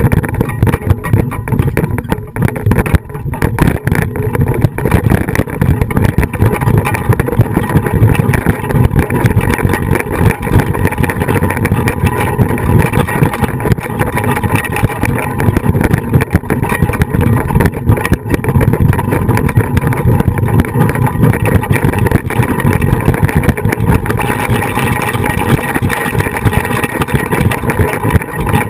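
Continuous loud rumble picked up by a camera fixed to a flying fox harness frame during the ride.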